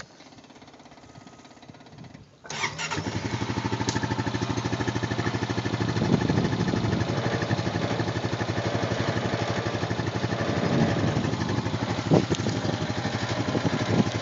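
A 2010 Honda 420 cc fuel-injected ATV engine is electric-started. It catches about two and a half seconds in and settles into a steady, evenly pulsing idle in neutral.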